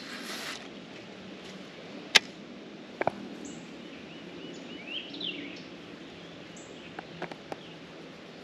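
A brief whoosh as a jig is cast on a 13 Fishing baitcasting rod and reel, followed by sharp clicks from the reel, the loudest about two seconds in and a double click a second later. Small birds chirp in the background.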